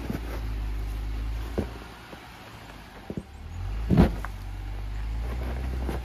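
Jeep's engine running at low speed off-road, pulling harder, easing off, then pulling again. A short knock about a second and a half in and a heavy clunk about four seconds in, the loudest sound, come from the vehicle jolting over the rough ground.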